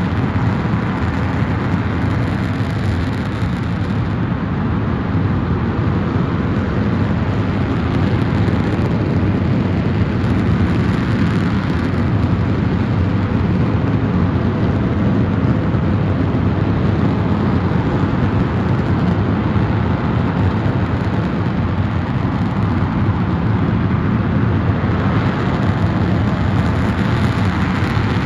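Launcher E-2 oxygen-rich staged-combustion LOX/kerosene rocket engine, about 22,000 lbf of thrust, firing continuously on a test stand: a steady, deep rushing noise that holds at one level without change.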